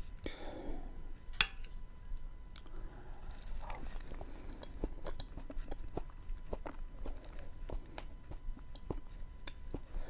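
Close-miked chewing of porotos (beans) with onion and tomato: wet mouth sounds with many small clicks and smacks, and one sharper click about one and a half seconds in.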